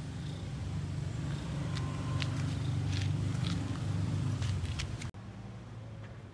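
Low, steady rumble of an engine running, with a few light clicks in the middle. It breaks off abruptly about five seconds in, leaving a quieter hum.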